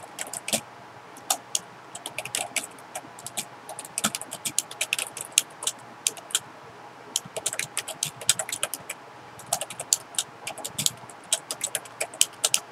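Computer keyboard typing: quick runs of keystroke clicks with short pauses between them, as a line of code is typed.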